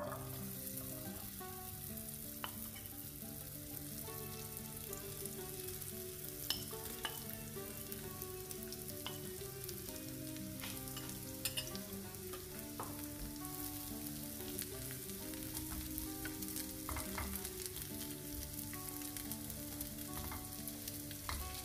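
Corn kernels sizzling in hot oil in a nonstick frying pan, a steady hiss throughout. Scattered clicks and scrapes come from a spoon and spatula against the pan as the kernels are spread and pressed flat.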